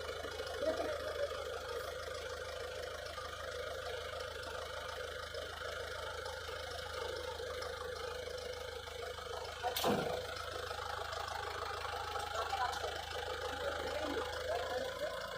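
Engine idling steadily, with one sharp knock about ten seconds in.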